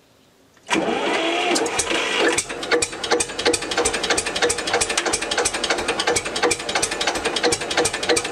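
Deutz F1L514/51 single-cylinder air-cooled diesel tractor engine cold-starting at −5 °C. It bursts into sound under a second in and cranks over with a rising whine for about a second and a half. It then catches and runs with a rapid, regular knocking beat.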